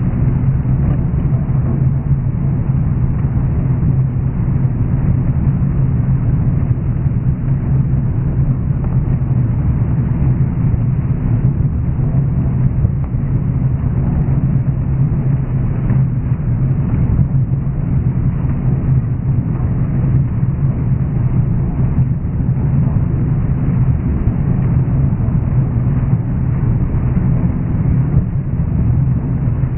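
John Deere 9500 combine's diesel running steadily, a continuous low drone with a strong hum and no change in speed.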